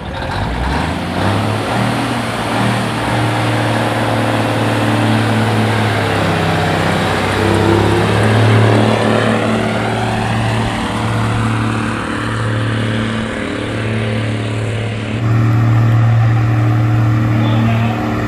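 Classic semi truck's diesel engine working under full load as it drags a truck-pull sled, running loud and steady with a few brief dips in the engine note partway through.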